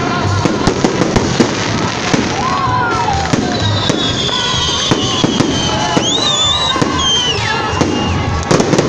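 Festive fireworks salute: a rapid run of sharp bangs from bursting shells over a steady crackle, with several high whistling tones gliding through the middle.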